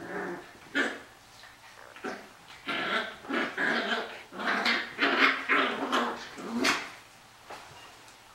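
Puppies play-growling as they wrestle, in a series of short, irregular growls that stop about a second before the end.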